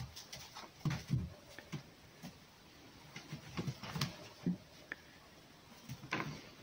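Fox's paws thudding and rustling on a straw-covered floor as it runs about its pen, in short, irregular steps.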